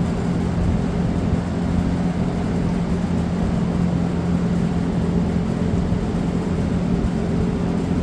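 Steady low background hum with an even, unchanging pitch over rumbling noise.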